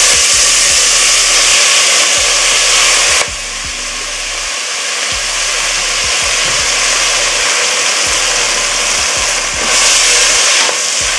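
Chopped onion and bell peppers sizzling as they hit hot oil in a steel pot, loudest for the first three seconds, then a steady sizzle that swells again briefly near the end as they are stirred. The sizzle is the sign the oil is hot enough, the sound the cook says the dish needs.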